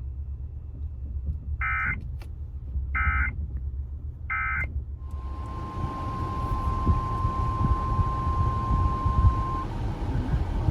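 Emergency Alert System broadcast: three short bursts of EAS digital data tones about a second and a half apart, the end-of-message signal. Then a hiss comes in and a steady single-pitch weather radio alert tone, about 1050 Hz, sounds for about four and a half seconds and cuts off.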